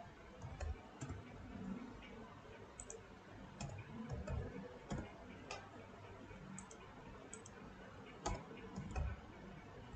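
Scattered computer mouse clicks and keyboard key presses, a dozen or so sharp faint clicks spread irregularly, over low room noise.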